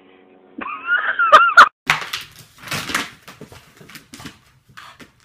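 A short, loud, wavering high-pitched cry, followed by a run of knocks and scuffling noises.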